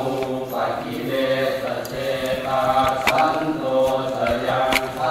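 Thai Buddhist temple chanting: voices reciting together in a steady, drawn-out chant, with long held syllables.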